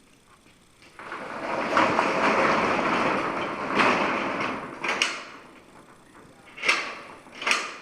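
Metal roll-up door hardware being worked: a rattling scrape of about three and a half seconds, then several sharp clacks as the slide latch is run through the newly fitted strike plate to test that it moves smoothly.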